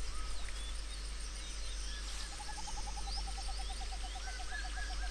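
Tropical forest ambience with scattered high bird chirps. From about two seconds in, a fast run of short, low hooting notes comes in, about nine a second, drifting slightly lower in pitch.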